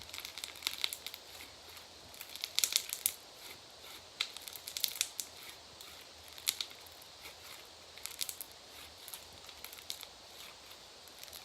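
Foam-bead slime being squeezed and stretched by hand, giving irregular clusters of crisp crackles and pops from the foam beads, the loudest bunch about two and a half seconds in.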